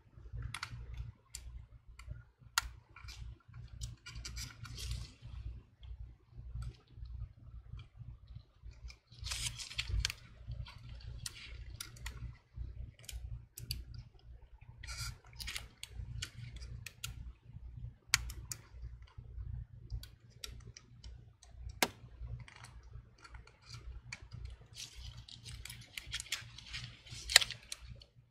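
Irregular small clicks and scratchy rustling from gloved fingertips and a thin pry tool working a stubborn flex cable into its connector on a MacBook Pro logic board, with a few sharper clicks scattered through. A low steady hum runs underneath.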